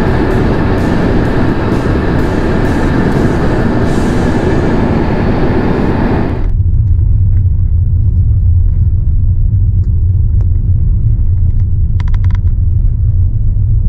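Car driving on the highway: loud road and wind noise that switches abruptly about six seconds in to a steady low cabin rumble.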